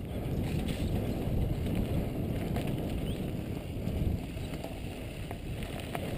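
Mountain bike riding over a dirt singletrack, picked up by a GoPro carried on the ride: a steady low rumble of tyres and wind on the microphone, with a few small rattles and clicks.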